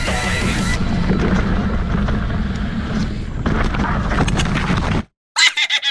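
Mountain bike riding down a rough dirt trail, heard from a camera on the bike: wind on the microphone over a steady rumble with rattling knocks from the ground. The sound cuts off abruptly about five seconds in, and a short, rapidly pulsing sound follows near the end.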